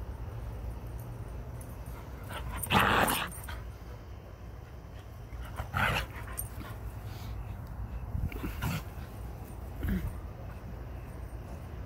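A puppy barking a few times in short bursts, the loudest about three seconds in.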